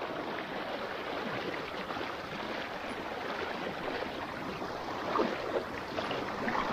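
Legs wading through a shallow river, the water splashing and rushing steadily around them, with a few louder splashes from about five seconds in.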